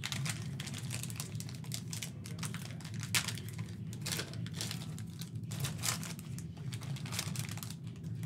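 Plastic wrapper of a trading-card fat pack crinkling in quick, irregular crackles as it is handled and opened by hand.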